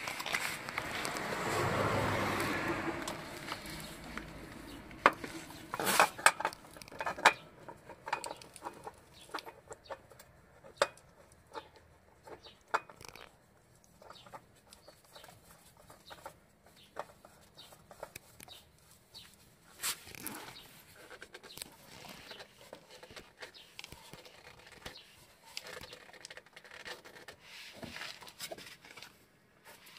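Sparse clicks and knocks of hand work in the engine bay as a new oil filter is fitted, with a cluster of sharp clicks about five to eight seconds in. A louder noisy sound fills the first few seconds.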